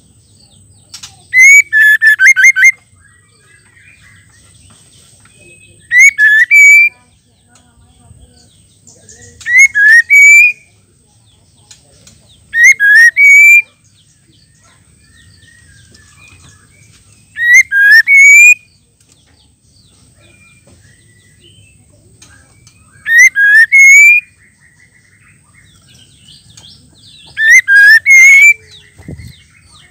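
Female white-rumped shama (murai batu) calling: seven loud, short phrases of rising whistled notes, one every four to five seconds. This is the call that shama keepers play to rouse male shamas into song.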